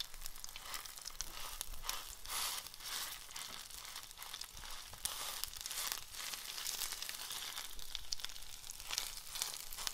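Chicken pieces sizzling in oil in a non-stick frying pan as their juices cook off, with frequent light scrapes and clicks of a spatula stirring them against the pan.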